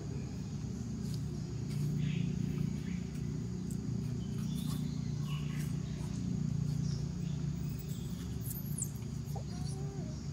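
Outdoor forest ambience: a steady low rumble with insects chirping and scattered light clicks, and a short high squeak near the end.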